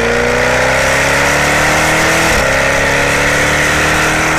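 Jaguar F-Type Coupe's engine accelerating hard, its note climbing steadily, with a short break about two seconds in as it shifts up a gear, then climbing again.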